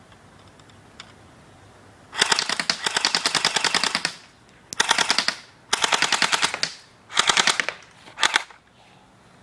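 M85 airsoft rifle firing on full auto: a long burst of rapid clicking shots starting about two seconds in, then four shorter bursts with short pauses between them.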